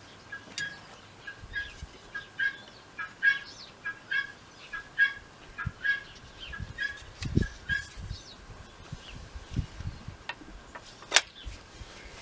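A bird calling over and over in short, evenly spaced chirps, about two a second, with a few low knocks from handling. A single sharp click comes about 11 seconds in.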